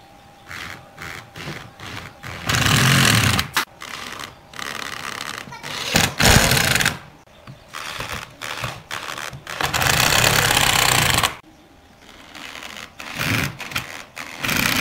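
Cordless drill running in four bursts of about a second each, boring or driving screws down through a pine table-leg base into the tabletop, with quieter knocks and handling sounds between the bursts.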